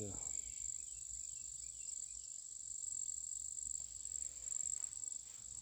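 Steady, high-pitched chorus of night-singing insects, a continuous shrill trill with no break.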